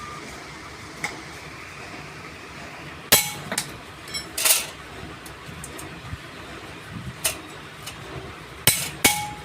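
Hammer blows on metal: about six sharp, irregularly spaced strikes starting about three seconds in, a few leaving a short metallic ring.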